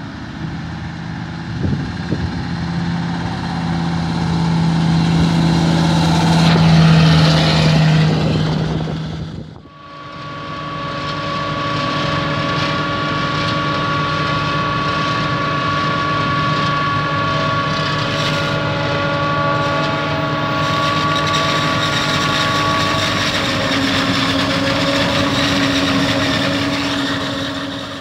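Tatra 815 Agro 6x6 truck's diesel engine running and growing louder as it approaches, cut off abruptly about ten seconds in. Then a self-propelled forage harvester runs while chopping maize, with a steady high whine over its engine and a truck driving alongside.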